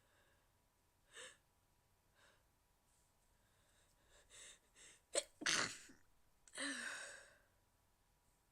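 A woman's stifled sneeze: a few short catching in-breaths, then a sharp sneeze about five seconds in, followed about a second later by a second, longer breathy burst.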